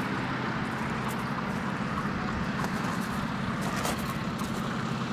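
2018 Kubota L4701 tractor's four-cylinder Kubota diesel engine idling steadily.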